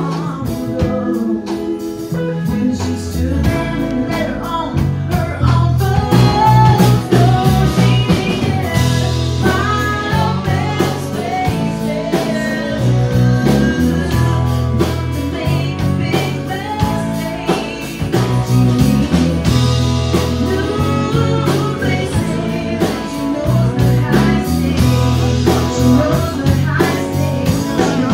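A woman singing lead in a country song with a live band: acoustic guitar, electric guitar and drums. The voice comes in about two seconds in and carries on over the steady beat.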